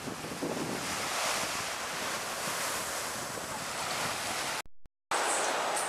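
Sea waves washing ashore, with wind buffeting the microphone. The sound cuts out completely for about half a second, a little before the end, then resumes.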